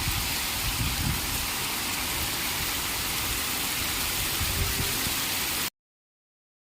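Heavy rain falling steadily: a dense, even hiss with uneven low rumbling underneath, which cuts off suddenly near the end.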